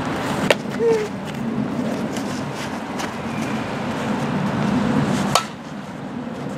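Two sharp knocks from softball fielding drills, one about half a second in and one a little after five seconds, over a steady outdoor rumble, with a few fainter ticks between.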